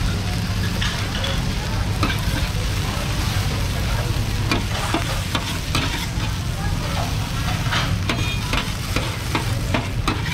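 Stir-frying on a large, wide steel wok: a steady sizzle of noodles and bean sprouts, with a metal spatula scraping and clinking against the pan at irregular moments. A steady low hum runs underneath.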